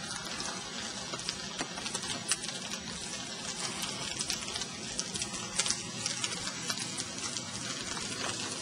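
Burning dry leaves crackling: a steady hiss with frequent, irregular sharp pops and snaps.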